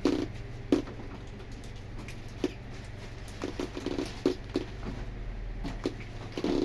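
Scattered light taps, clicks and knocks, irregularly spaced, over a steady low hum.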